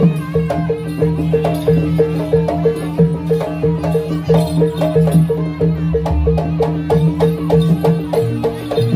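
Jaranan (kuda kepang) music: a fast, even beat of pitched percussion over a steady low tone.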